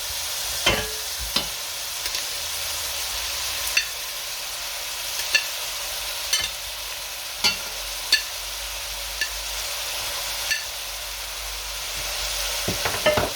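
Chicken pieces sizzling in a pot of frying mushrooms and spring onions, a steady hiss broken by about ten short, ringing clinks against the pot as the pieces go in.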